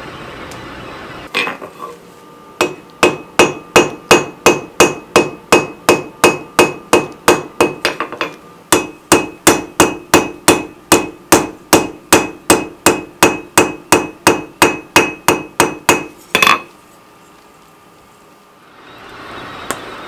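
Rounding hammer striking steel on an anvil in a steady run of blows, about three a second, with a short break about a third of the way through and one louder final blow. The anvil rings on between strikes.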